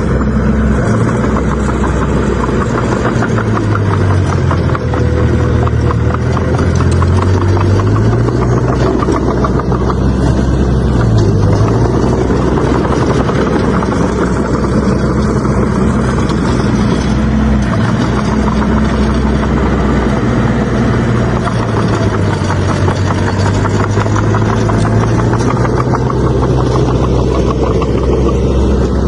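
Heavy diesel engine of a bulldozer running steadily, its pitch dipping under load for a few seconds about four seconds in and briefly again about eleven seconds in.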